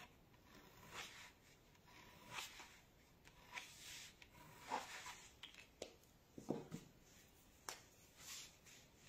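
Faint, short strokes of a gel pen drawing fine lines on paper, a soft scratch every second or so at irregular intervals.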